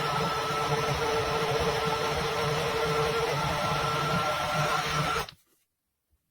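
Mexgcom 450 ml rechargeable portable mini blender's motor running steadily at speed with a steady whine, then cutting off abruptly about five seconds in.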